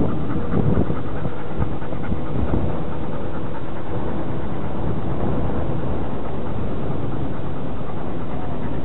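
Steady wind noise on the microphone, with water splashing and lapping against a kayak's hull and its outrigger stabilizer.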